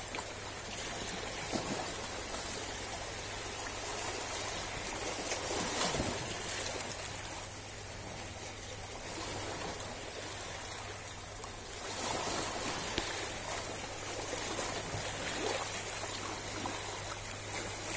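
Small sea waves lapping and washing over algae-covered rocks at the water's edge, a continuous swishing and trickling that swells and eases gently.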